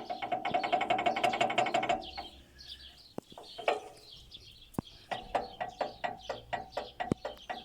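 Light metallic clacking of the balance shaft's gear against its mating gear as the shaft is rocked back and forth by hand. The knock comes from backlash between the gear teeth. It comes in quick runs of clicks, a fast run at first, then after a short pause a slower one of about three or four a second. Birds chirp in the background.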